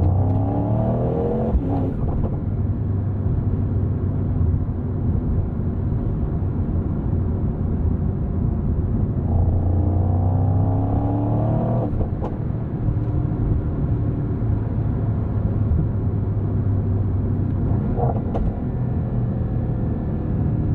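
Mercedes-AMG GT 63's twin-turbo V8 under way with a steady low drone, its pitch climbing under acceleration near the start and again from about 9 to 12 seconds in, each climb ending in a sharp break as the gearbox upshifts; another short break comes around 18 seconds in.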